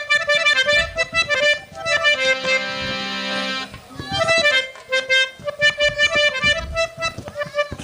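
Harmonium playing a quick melody of short notes, with a held chord about two and a half seconds in, over drum beats.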